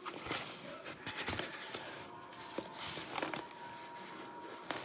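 Faint rustling and small ticks of plastic wrapping being handled as it is peeled back from a handbag.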